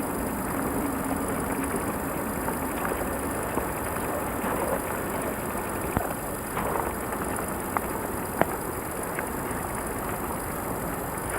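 Footsteps crunching through forest-floor litter, with irregular sharp snaps and clicks, over a steady hiss from the camcorder.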